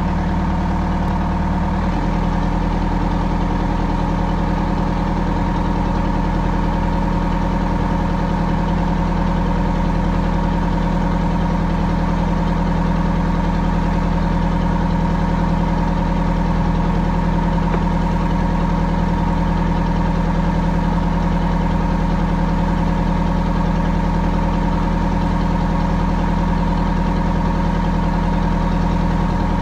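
Small ferry boat's inboard engine running steadily, heard on deck while under way. The engine note changes once about two seconds in, then holds steady.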